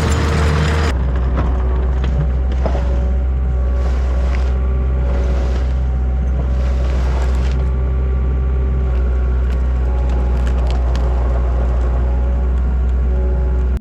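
Diesel engine of a compact track loader running steadily and loudly, with a deep drone. Its sound shifts about a second in, and a few faint clicks come over it.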